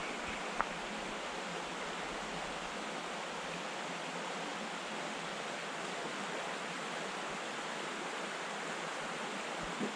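Small rocky trout stream running, a steady even rush of water, with one light click about half a second in.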